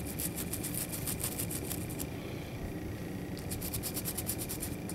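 Toothbrush bristles scrubbing a small Glock slide part in quick back-and-forth strokes, about seven or eight a second. The strokes come in two spells with a pause of about a second and a half between them.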